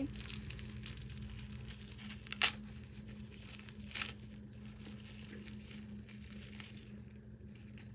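Paper squishy being crinkled and torn open, with a sharp rip about two and a half seconds in and another about four seconds in, then quieter rustling.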